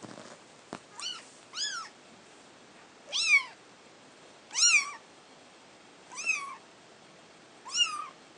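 Young spotted tabby kitten meowing six times: short, high-pitched mews that rise and fall, the first two close together and the rest about every one and a half seconds, the middle ones loudest.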